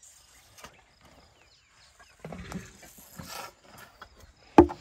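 Elephant calf feeding from a plastic milk bottle held up in her trunk, with irregular low noises and then one sharp, loud knock near the end.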